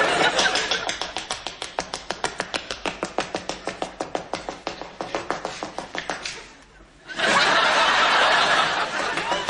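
Studio audience clapping in a fast, even rhythm, about six claps a second, for about six seconds, then breaking into a burst of laughter and applause about seven seconds in.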